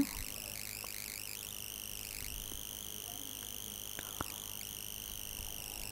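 Quiet steady hiss of room tone and microphone noise, with a couple of faint short clicks about four seconds in.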